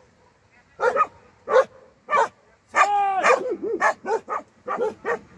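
Dogs barking in the dark: three short sharp barks, then one longer drawn-out bark, followed by a quick run of short yelps. It is alarm barking at something out in the night, which the shepherds suspect may be a bear.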